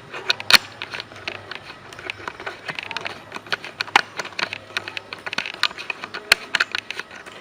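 A quick, irregular run of clicks and knocks, like small objects being handled and set down, over a faint low hum.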